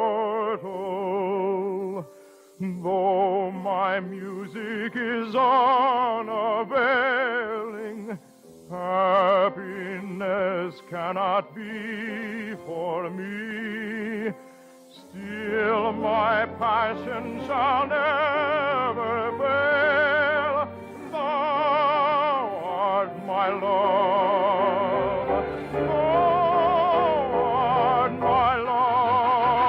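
Operatic solo singing with a wide vibrato, accompanied by orchestra. The phrases break briefly about 2, 8 and 14 seconds in, and the orchestra grows fuller through the second half.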